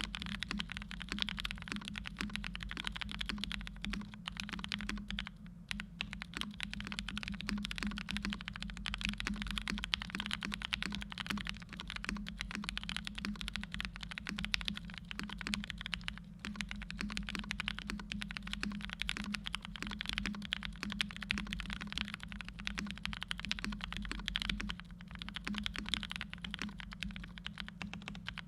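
Steady typing on a Primus75 custom mechanical keyboard with NK Cream frankenswitches (Cream housings, Hippo stems), a polycarbonate plate, PE foam and the tempest mod, and GMK Dracula keycaps. The keystrokes come thick and fast, with a few short pauses.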